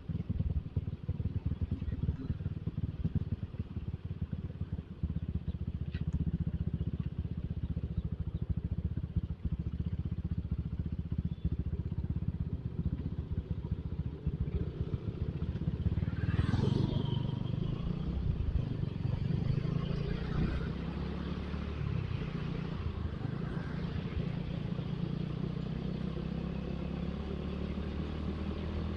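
Motorcycle engine running on the move, with wind buffeting the microphone and the rumble of traffic; the sound swells louder about halfway through.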